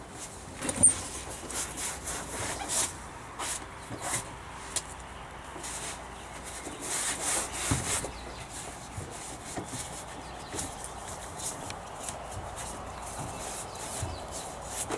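Irregular hand scraping and rubbing on the boat's plastic console, with short knocks and a sharp knock about a second in; no power tool is running.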